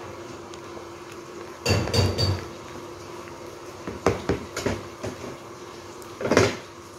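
A cooking utensil knocking and scraping against a metal pot of boiling soup, in short clattering bursts about two seconds in, around four to five seconds in, and again near the end, over a steady low hum.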